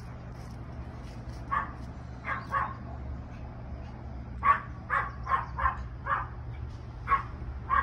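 A dog barking, about ten short barks in loose clusters, most of them in the second half.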